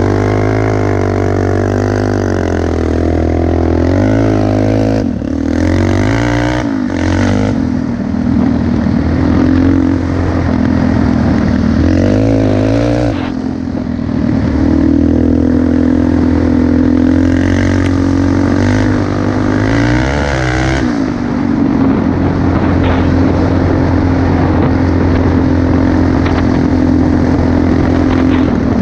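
Quad bike engine running under way as the ATV is ridden over a dirt track. The revs drop and climb again several times with the throttle, then hold steady for the last several seconds.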